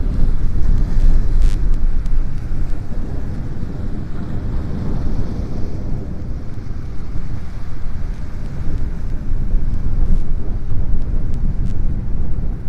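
Sea surf washing and breaking against a boulder shoreline, under heavy wind buffeting on the microphone that makes a loud, uneven low rumble.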